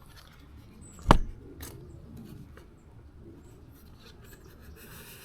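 Light handling noises: a single sharp tap about a second in, a smaller click just after, then faint rubbing and rustling.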